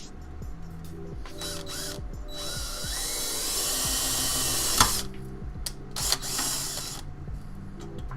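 Cordless drill running in bursts while drilling into a PC case: a short burst about a second in, a longer run from about two and a half seconds in with the motor pitch climbing, and another short burst around six seconds.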